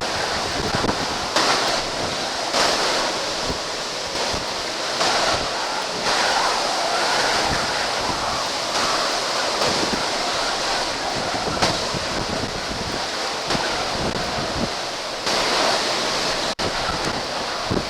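Typhoon storm winds and driving rain at their peak, the return winds after the eye has passed, gusting and buffeting the microphone. The sound briefly cuts out near the end.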